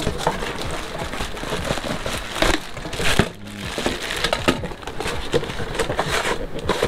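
Cardboard and plastic packaging rustling and crinkling as a boxed figure is worked up out of a tight-fitting cardboard shipping carton, with scattered scrapes and knocks of cardboard on cardboard.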